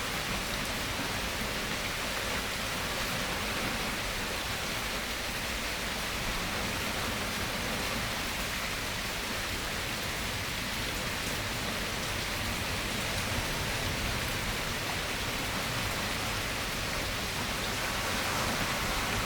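Steady rainfall, an even hiss that holds at the same level throughout, with no thunder.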